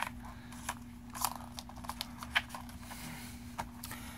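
Plastic Blu-ray case and its paper insert being handled: a series of sharp plastic clicks and taps with short paper rustles, the loudest click right at the start.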